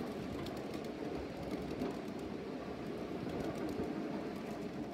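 A ride-on 1/8-scale miniature train running along its track: a steady rumble of wheels on rail with faint, irregular clicking.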